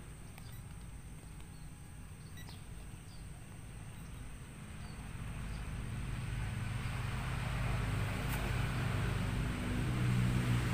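Outdoor background noise: a steady low hum with a hiss that grows gradually louder over the second half, with a few faint bird chirps early on.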